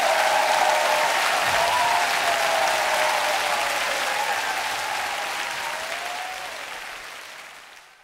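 Concert audience applauding and cheering, fading out steadily to silence near the end.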